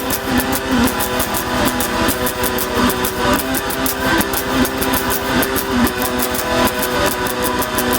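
Noise music: droning, guitar-like tones held over a fast drum-and-bass beat of rapid sharp clicks.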